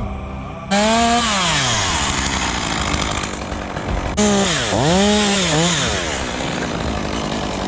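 Chainsaw revving. It cuts in suddenly about a second in with its pitch sliding down, comes in again about four seconds in with the pitch dipping and rising twice, and runs steadily in between.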